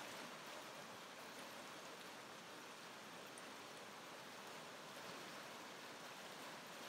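Rain-swollen creek rushing in flood: a faint, steady hiss of turbulent water.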